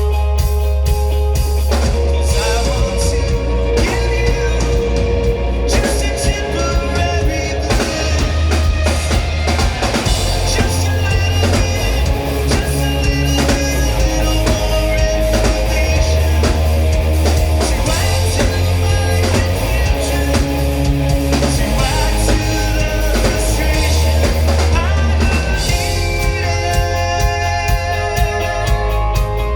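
Live rock band playing: loud drums, bass and electric guitar, with singing.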